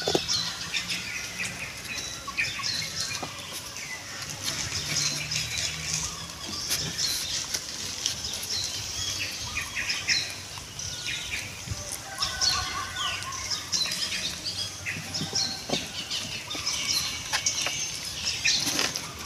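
Many short, high chirps and calls, with a few brief gliding squeaks and small clicks, over a faint low hum.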